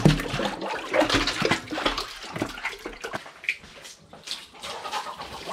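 Water splashing and pouring in irregular gushes during a bucket-and-dipper bath (Indonesian mandi). A bucket is drawn up a concrete well, then scoops of well water are tipped from a plastic dipper over a person's body onto a tiled floor.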